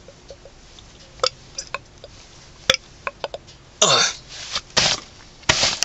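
A man burping: a few faint mouth clicks, then a loud burp about four seconds in that drops in pitch, followed by two shorter rough bursts.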